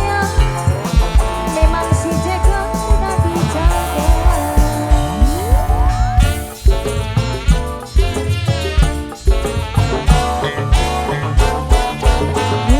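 Loud dangdut-style band music: a steady, heavy drum beat under held melody notes. About five seconds in, one note slides steeply upward in pitch.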